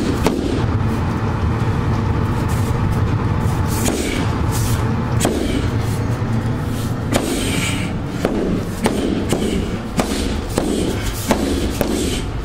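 Heavy punching bag being struck with gloved fists and a fighting stick: about ten sharp thuds and cracks at uneven intervals, coming closer together in the second half, over a steady low rumble.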